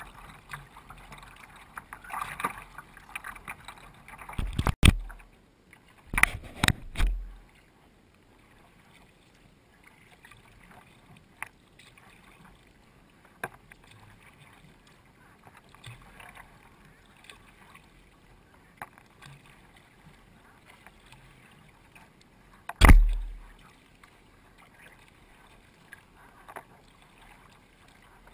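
Water washing and splashing along a sea kayak's hull as it is paddled, with a few loud sudden thumps: a cluster in the first seven seconds and the loudest about 23 seconds in.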